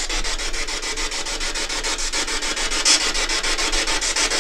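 Ghost box (spirit box) sweeping through radio stations: a steady hiss of static chopped into a rapid, even pulsing.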